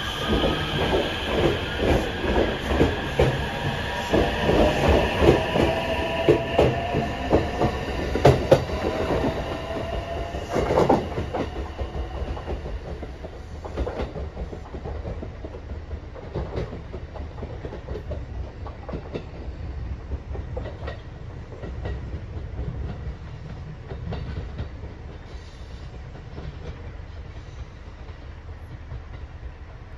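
JR West 287 series limited express electric train pulling out and accelerating: its motor whine rises steadily in pitch while the wheels clack rhythmically over the rail joints. The sound dies away about twelve seconds in, leaving a low rumble.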